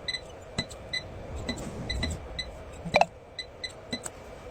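A run of short, high electronic beeps at uneven intervals, with one sharp snap about three seconds in.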